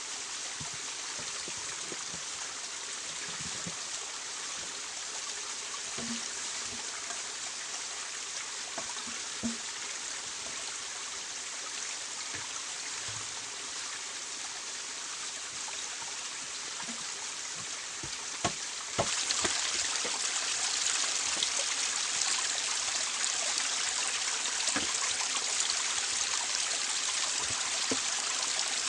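Water running in a forest stream, a steady rushing trickle. A couple of sharp knocks come just before it suddenly gets louder about two-thirds of the way through.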